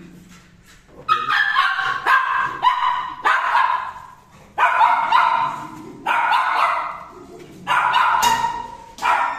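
Kennel dogs barking over and over in quick runs of sharp barks, starting about a second in.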